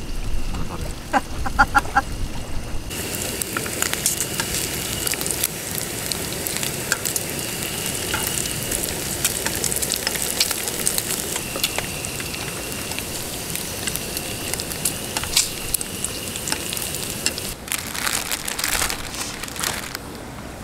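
Slices of pork sizzling and crackling in a frying pan. Near the end the sizzle gives way to the crinkle of a plastic bag being handled.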